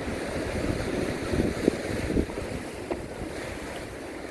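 Sea waves washing against coastal rocks, with wind buffeting the microphone in a low rumble.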